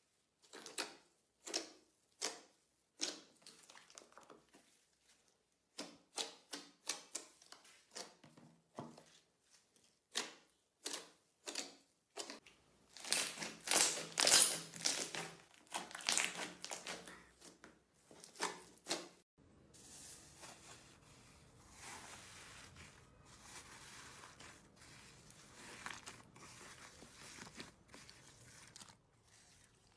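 Slime being squished and pressed by hand, making short crackling, crinkling squishes one after another, loudest in a dense cluster around the middle, then a softer, steadier crackle for the last third.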